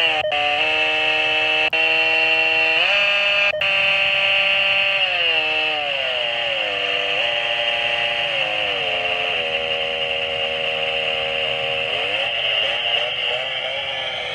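A Victor Reader Trek's small built-in speaker playing a slow run of buzzy held tones, each note sliding up or down into the next, over a steady hiss.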